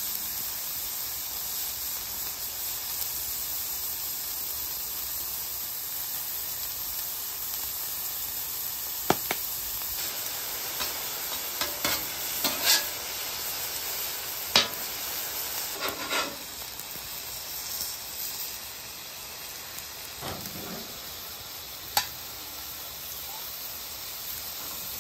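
Thin-sliced ribeye sizzling in hot beef fat on a flat-top griddle, a steady high hiss, with a few sharp clicks of a metal spatula against the griddle steel through the middle as the meat is turned.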